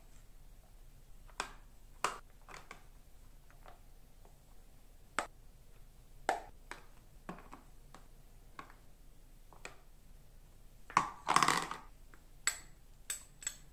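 A metal spoon scraping and tapping against a plastic lunch box as fried rice is spooned in, with scattered clicks of the plastic box and lids. A louder clatter of plastic and cutlery comes near the end.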